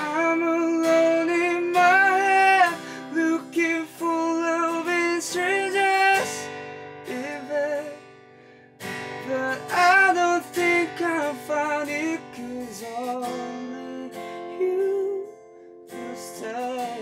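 A man singing a slow English ballad to a strummed Epiphone acoustic guitar. The voice drops out for a few seconds past the middle, leaving only the guitar, then comes back.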